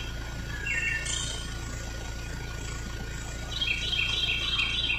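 A songbird singing: a short call about a second in, then a quick run of about six repeated notes near the end, over a steady low background hum.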